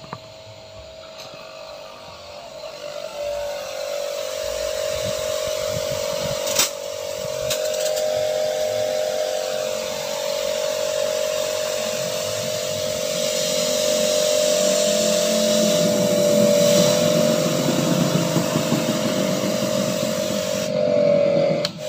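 Mollar HPW500 500-watt electric pressure washer running with a steady whine while its pump draws water. About three seconds in, the pitch dips slightly and it grows louder as the pump primes, and the hiss of water spraying from the nozzle builds up, with a sharp click about six and a half seconds in.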